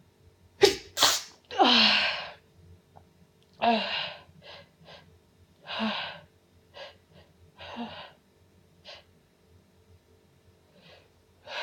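A woman sneezing over and over in a fit: two quick sharp sneezes, a longer voiced one about two seconds in, then single sneezes roughly every two seconds, with fainter catches of breath between.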